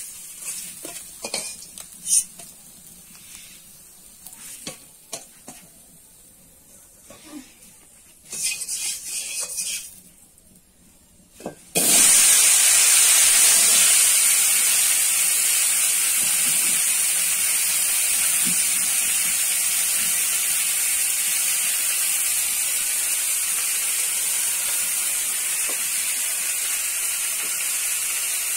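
Chunks of potato hitting hot oil in a metal wok: a loud, steady sizzle starts suddenly about twelve seconds in and keeps going. Before it, quieter clinks of a metal spatula against the wok and a steel bowl.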